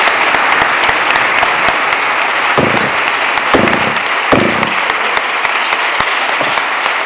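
Audience applause: dense, steady clapping from a large crowd, with three dull thumps about halfway through.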